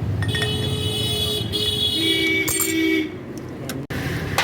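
Vehicle horns honking over steady traffic rumble, held for about three seconds and sounding two pitches together like a dual-tone horn.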